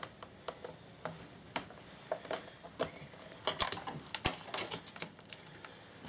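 Irregular sharp plastic clicks and taps from a Toshiba laptop keyboard being prised up out of its retaining clips with a small pry tool.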